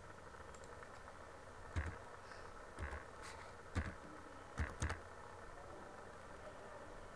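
Computer mouse clicks, five sharp clicks with a slight thud over about three seconds, the last two close together, while a new tool is chosen in the paint program. A steady low hum runs underneath.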